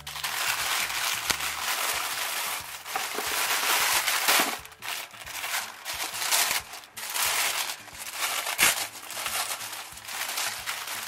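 Tissue paper crinkling and rustling as hands unfold it from around a package, loud and uneven, with a couple of brief lulls.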